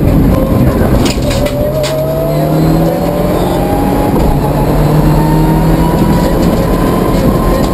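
Mitsubishi Lancer Evo IX rally car's turbocharged four-cylinder engine, heard from inside the cabin, accelerating out of a bend with its pitch climbing slowly and steadily through a long gear. A few sharp clicks come between one and two seconds in.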